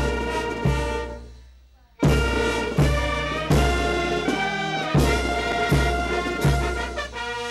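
Brass and orchestral march music with a heavy drum beat about every three-quarters of a second. It fades away about a second in and starts again suddenly two seconds in.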